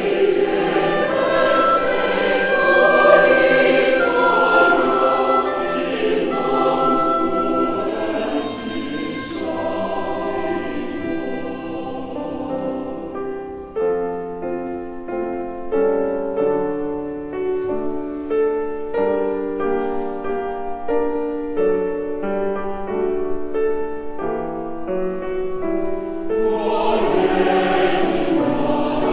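Large mixed choir singing a hymn. The singing grows softer and smoother in the middle, then fuller and louder again near the end.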